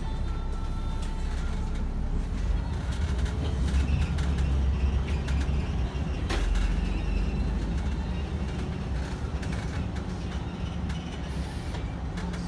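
City bus engine and road noise heard from inside the cabin, a steady low hum that grows louder a couple of seconds in as the bus drives on. Light rattles from the interior, with one sharp knock a little past halfway.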